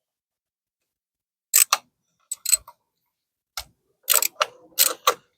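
Metal clicks from a ratchet and 10 mm socket working a bolt loose: sharp, separate clicks starting about a second and a half in and coming more often near the end.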